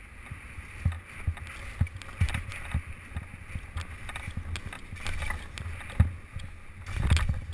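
Skis sliding over snow, a steady scraping hiss, with wind rumbling and knocking on the helmet camera's microphone over bumps; a louder scrape about seven seconds in.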